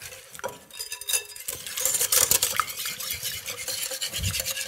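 Wire balloon whisk beating a thick tahini dressing in a glass bowl: fast, continuous scraping and ticking of the wires against the glass. It picks up after about half a second.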